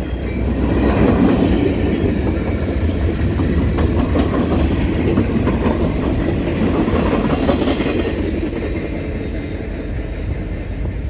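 Freight train of gondola and hopper cars rolling past, its steel wheels giving a steady rumble with clattering clicks over the rails, easing off near the end as the last car goes by.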